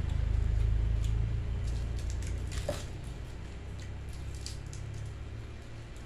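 Chewing and wet mouth sounds of someone eating, with scattered light clicks, over a low rumble that is loudest in the first two seconds and then eases.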